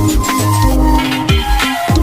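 Electronic pop music with a steady beat, heavy bass with short sliding notes, and held synth notes; no singing.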